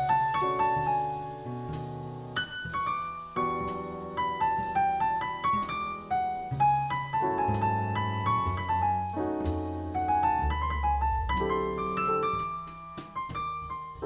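Background piano music: a melody of struck notes over low chords and bass notes.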